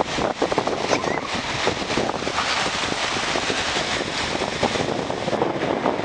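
Steady rushing of a shallow rocky stream running over small rapids, with a few light splashes of people wading in the water.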